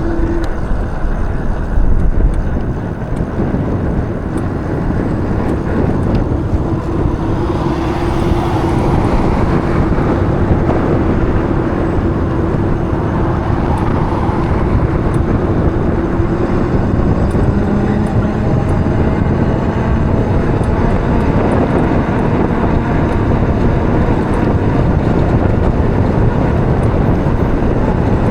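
Steady wind and road noise while riding an e-bike, with a faint steady hum for about ten seconds in the middle.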